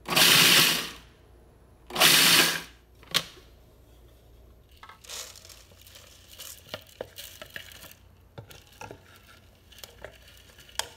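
Food processor pulsed twice, about a second each, chopping cashews. After a click, the ground cashew crumbs are tipped from the processor bowl onto a steel mesh sieve: a quieter pattering rustle with small knocks.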